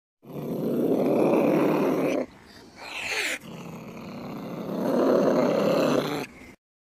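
Harsh animal growling in two long stretches, with a short cry that slides up and down in pitch between them.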